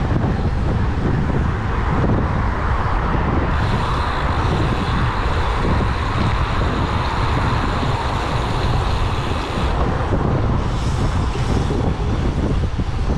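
Wind buffeting the microphone during a bicycle ride: a steady rumbling rush with no break.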